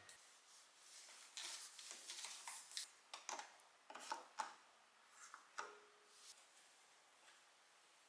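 Faint handling sounds: a scatter of light clicks and knocks with some soft rubbing, dying away after about six seconds.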